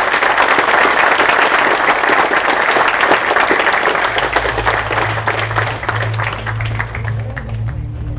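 Audience applauding: a dense clatter of many hands clapping that slowly thins. About halfway through, music with a low bass line fades in underneath.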